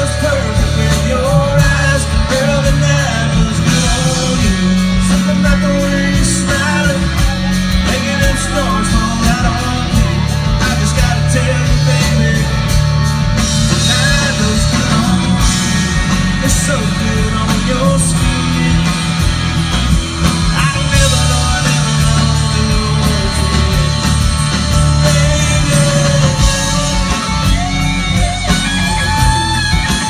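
Live country-rock band playing loudly through a concert PA: electric and acoustic guitars over bass and drums, heard from within the audience.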